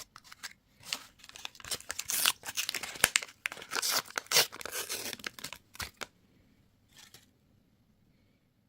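Candy wrapper being torn open and crinkled by hand, in quick irregular crackling bursts for about six seconds, then a brief rustle and quiet.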